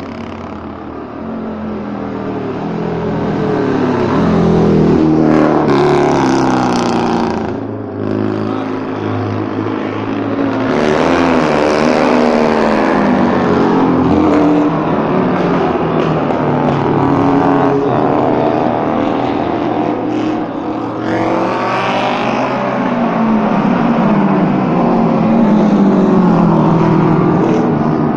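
Racing sidecar outfits' engines revving hard as they pass below and through a corner, the pitch climbing and dropping with throttle and gear changes. Several machines go by one after another, loudest at about five, eleven and twenty-one seconds in.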